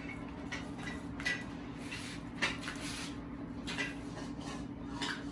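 Kitchen knife tapping and scraping on a cutting board at an uneven pace while raw chicken thighs are trimmed of fat, over a steady low hum.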